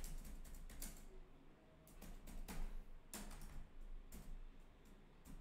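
Scattered light clicks and taps, irregular and several a second at times, over a steady low electrical hum.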